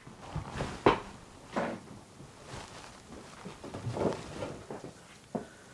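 A few soft, scattered knocks and rustles of objects being handled and moved about, the clearest about a second in and again shortly after.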